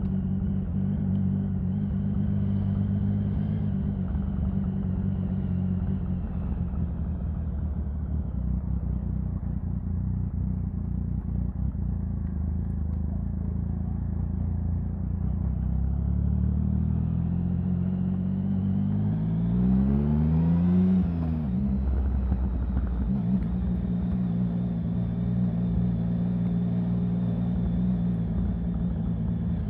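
Triumph Sprint 1050's three-cylinder engine running steadily. About two thirds of the way in the revs climb over a few seconds, then drop suddenly and settle back to a steady run.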